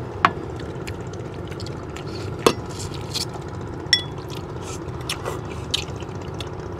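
Tableware clinking during a meal: about five sharp clicks of utensils against bowls, one about four seconds in ringing briefly like ceramic or glass, over a steady low background hum.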